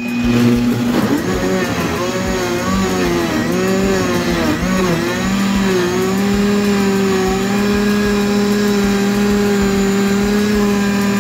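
Tefal high-speed blender starting up on its sorbet program and grinding raw potato pieces with a little water into a purée. The motor's pitch dips and recovers several times over the first five seconds or so as the chunks load the blades, then holds steady as the mix turns smooth.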